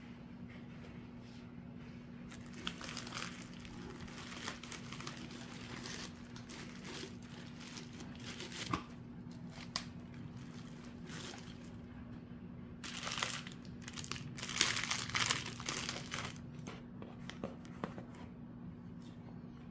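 Clear plastic wrapping crinkling in irregular bursts as it is handled, loudest a little past the middle, over a steady low hum.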